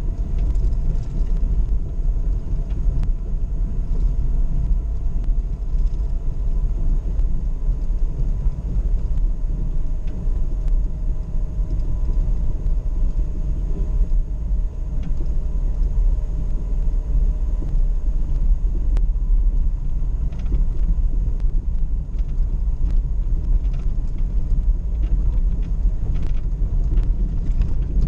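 Off-road vehicle driving slowly over rough ground, heard from on board: a steady low engine and drivetrain rumble with a faint whine. Light knocks and rattles come more often in the second half.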